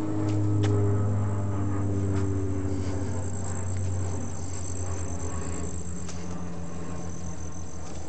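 Low engine hum, loudest about a second in and slowly fading, with a high steady insect trill from about three seconds in and a few light footstep scuffs on paving.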